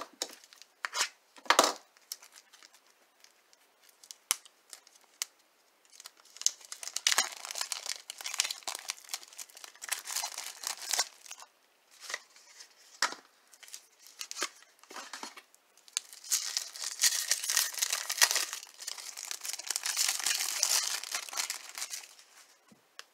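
A 1994 Flair baseball card pack being torn open and its wrapper crinkled and handled, with a few sharp clicks and taps from the cards and pack near the start. The tearing and crinkling come in two long stretches, the second near the end.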